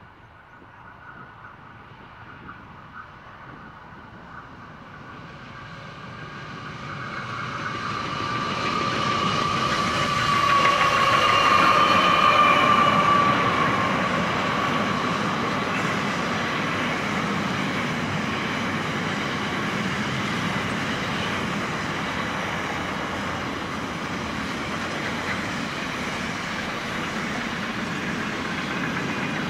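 Two NR class GE diesel-electric locomotives approach and pass, growing steadily louder to a peak about 11 to 13 seconds in, with a whine that drifts slightly lower in pitch as they go by. After that, a long train of container wagons rolls past with a steady rumble and clatter of wheels on rail.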